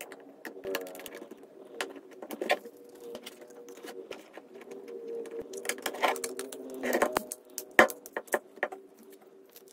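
Small clicks and taps of an Oppo F5 smartphone's plastic and metal parts being handled and pressed together during reassembly, with a cluster of sharper clicks about seven to eight seconds in as the back cover is pressed shut. A faint steady hum lies underneath.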